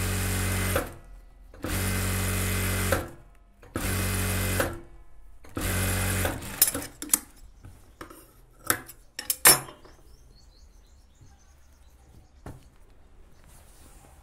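Industrial sewing machine running in four short bursts with brief stops between, stitching a rolled hem along a sleeve edge. This is followed by several sharp snips and clicks as the thread is trimmed.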